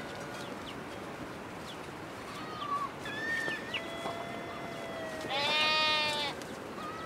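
A goat bleats once, loudly, for about a second near the end, a wavering call with a rich stack of overtones. Before it come a few faint, thin high-pitched calls.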